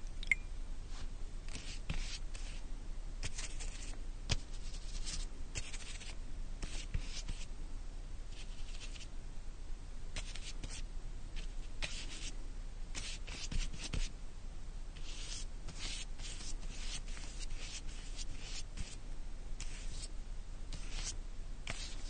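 Paint being applied to a wall: repeated scratchy strokes against the surface, irregular in length and spacing.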